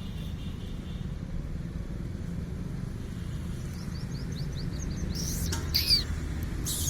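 Puppies squealing: a quick run of short, high chirps, then two loud, high-pitched squeals that fall in pitch near the end. A steady low rumble of background noise runs underneath.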